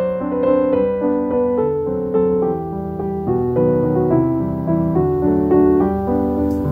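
Background piano music playing a gentle melody, one note after another.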